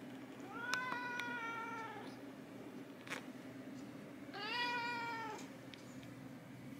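A domestic cat meowing twice: a long meow that slides up in pitch at its start, beginning about half a second in, and a shorter second meow about four seconds in.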